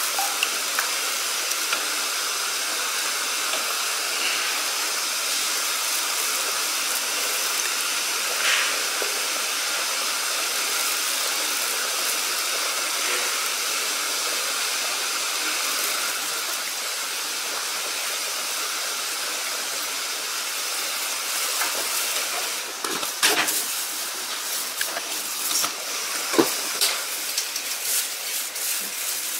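Steady hiss of steam from a metal steamer pot on the boil, steaming sago-cake batter in a loaf pan. A few light knocks come late on.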